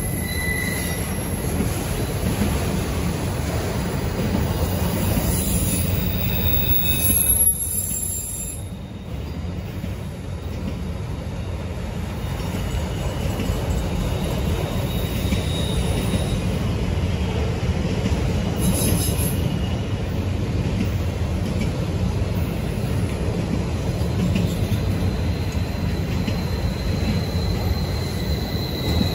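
Freight train of autorack cars rolling past: a steady low rumble of steel wheels on the rails, with thin, high wheel squeals now and then.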